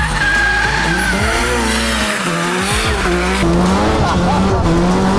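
Drift car being driven hard: the engine revs up and down while the tires squeal as the car slides.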